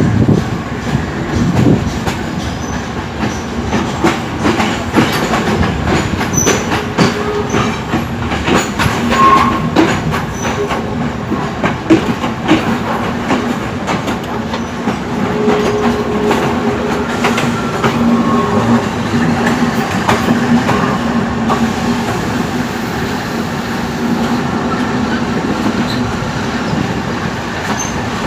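Arriving train rolling over rail joints and points: repeated clicks and clanks of the wheels over a steady low hum, with a few short wheel squeals.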